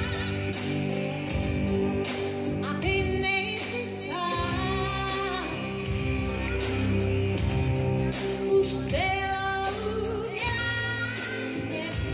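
Live pop song: a woman singing long, wavering held notes over a full band with a steady drumbeat.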